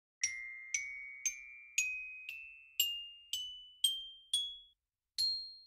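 Intro jingle of bell-like mallet-percussion notes, like a glockenspiel: nine notes struck about twice a second, each a step higher than the last, then after a short pause one higher note that rings on.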